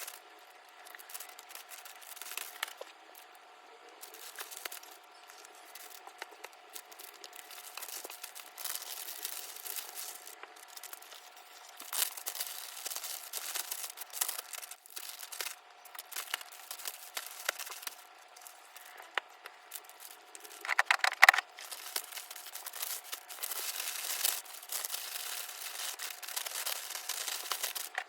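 Packing sounds: plastic packaging crinkling and rustling, with intermittent tearing. A short, loud ripping burst comes about 21 seconds in.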